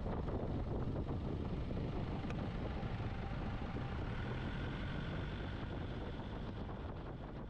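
A car driving along, a steady rumble of engine and road noise.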